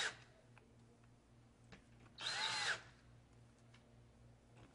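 Cordless drill driving screws into a hinge on a wooden cabinet door: short whirs of the motor, one fully about two seconds in with its pitch rising then falling, and the tail of another at the very start.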